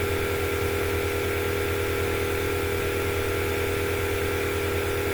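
A steady machine hum with a fast, even flutter, unchanging in pitch and level.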